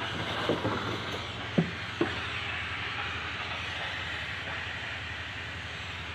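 Black & Decker steam mop giving off a steady hiss of steam as it is pushed over floor tiles, with a few short low knocks in the first two seconds as the mop head bumps along.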